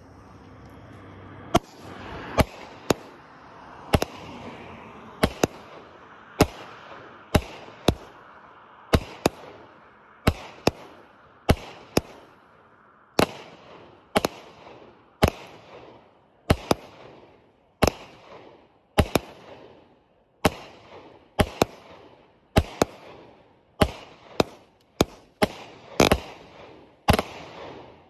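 Consumer firework cake firing its aerial shots. After a short hiss at the start come sharp bangs about once a second, several in quick pairs, each trailing off as the stars burst and crackle.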